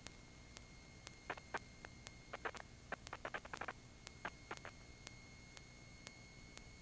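Faint electrical noise on a light aircraft's intercom audio line: a steady hiss and a thin whine, with a soft click about twice a second. Several short bursts of crackle come between about one and five seconds in.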